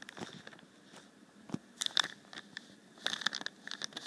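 Clear plastic bag holding a model kit's plastic sprues crinkling and crackling as it is handled, in short spells about two seconds in and again from about three seconds in.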